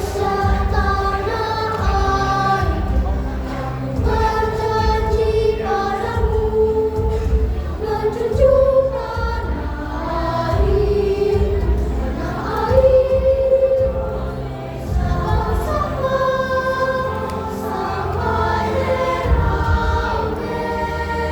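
Choir singing a slow song in parts, holding long notes that move smoothly from one to the next.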